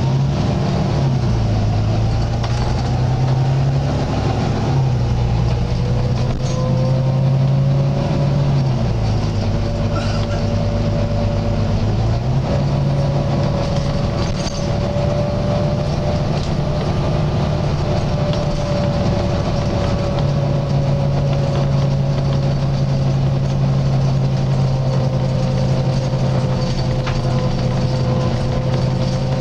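Volvo B9TL double-decker bus's six-cylinder diesel engine running while the bus drives, its note dropping and rising several times as it changes gear and speed. Above it a slight groaning noise holds on, wavering slowly in pitch.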